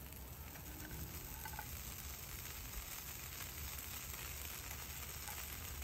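Faint, steady sizzle of seasoned potato wedges frying in a cast-iron skillet on a hot flat-top griddle.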